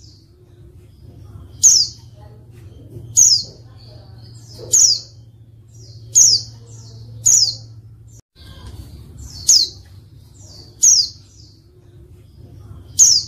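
A female white-eye (pleci) gives short, high chirps that slide down in pitch, each with a fainter note just before it, about eight times at roughly one-and-a-half-second intervals over a faint low hum. This is the female's call, used as a lure to prompt male pleci to answer and sing.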